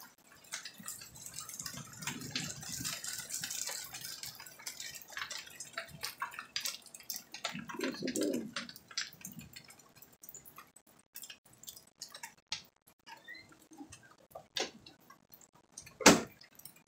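Rainwater dripping in irregular drops during a thunderstorm, each drop a sharp tick, with one louder tap near the end.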